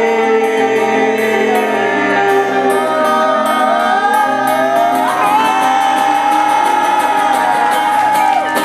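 Live band music with several voices singing and whooping over sustained chords; a long held sung note starts about halfway through.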